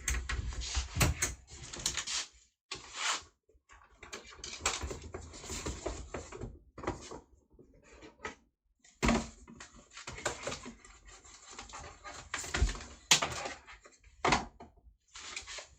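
Irregular rustling, tapping and clicking of wallets being handled close to the microphone.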